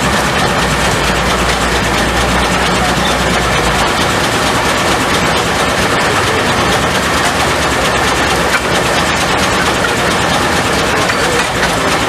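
Steam-powered sawmill machinery running with a steady, loud mechanical noise; a low hum underneath drops out about four seconds in.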